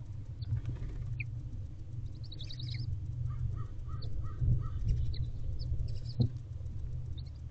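Steady low hum with scattered short, high bird chirps and a run of brief repeated calls in the middle, and a single knock about six seconds in.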